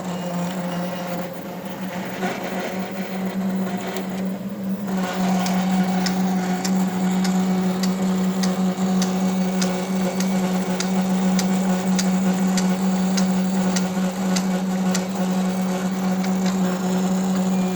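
Roland VersaCAMM printer/cutter motor running with a loud steady hum, joined from about six seconds in by regular clicks roughly twice a second: the loud noise that goes with its motor error 0080.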